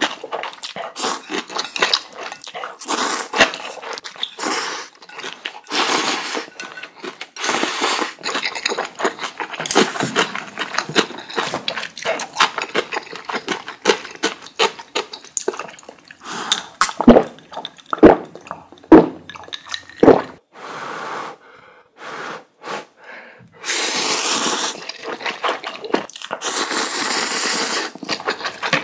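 Close-miked eating: spicy ramen noodles slurped from broth in loud one-second bursts, between wet chewing and smacking. Past the middle come four sharp crunching bites about a second apart.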